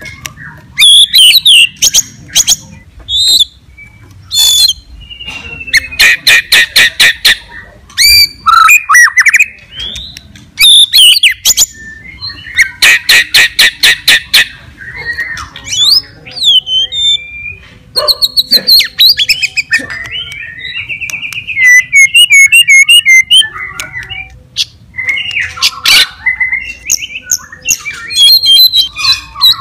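White-rumped shama (murai batu) in full song: a loud, varied string of whistles, slurred phrases and chatter, with two long runs of fast repeated notes about a fifth and half of the way through.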